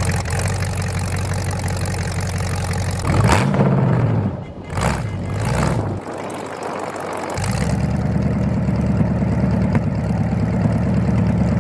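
Demolition derby car's engine idling, revved briefly two or three times around the middle, then settling back to a steady idle.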